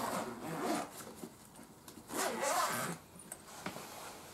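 Zipper of a soft pet carrier bag being pulled, in two strokes: one at the start and another about two seconds in.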